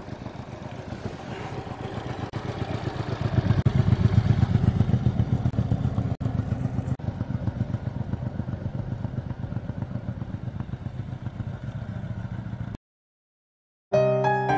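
Aquila GV300S motorcycle's V-twin engine running as the bike is ridden at low speed, growing louder about three to four seconds in. The sound cuts off suddenly near the end, and a piano tune starts just after.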